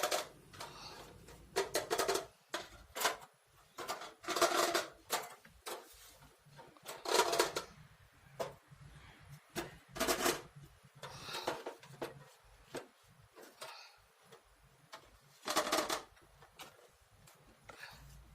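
Plastic toy kitchen pieces and their packaging being handled: irregular clicks and taps, with several louder rustles of up to a second.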